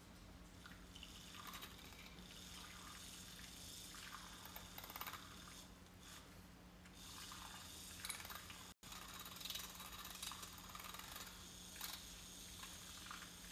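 Handheld battery-powered milk frother running in a glass cup of matcha, a faint steady whir with light swishing of the liquid as it whisks the tea to a froth.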